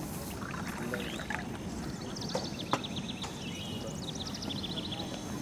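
Outdoor background with a steady low murmur and birds chirping. In the middle there is a quick run of high, rapid chirps. A single sharp clink comes about two and a half seconds in.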